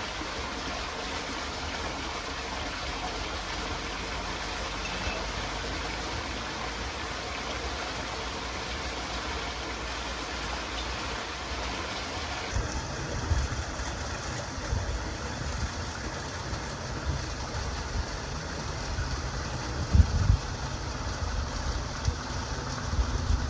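Steady rushing of a flowing stream. About halfway through the sound changes abruptly: the stream turns duller and irregular low rumbles and thumps come in, the loudest near the end.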